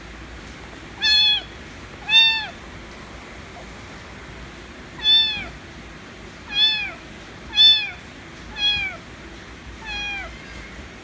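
Kitten meowing loudly and repeatedly, demanding attention: seven high meows, each dropping in pitch at its end, spaced one to three seconds apart, the last one softer.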